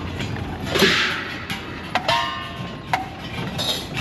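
Metal gong of a festival float band struck in rhythm: sharp strikes that ring briefly, two of them about a second apart in the second half. A short hissing burst comes about a second in.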